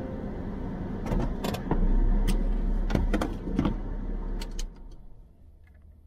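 Car engine running, heard from inside the cabin, with a run of sharp clicks and knocks; the low running sound stops about five seconds in, as when the engine is switched off after parking.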